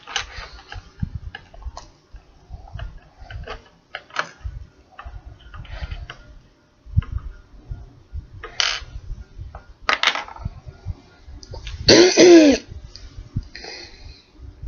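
A woman's wordless mouth and throat noises while she does her face makeup: a couple of short breathy bursts and, near the end, a brief voiced sound that bends down in pitch. Small clicks and taps of the makeup stick being handled run underneath.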